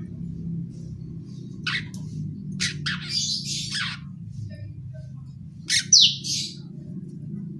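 Young long-tailed shrike chick giving harsh, raspy chattering calls in a few short bursts: the juvenile begging chatter of a bird learning to sing. The loudest burst, with a falling sweep, comes about six seconds in, over a steady low hum.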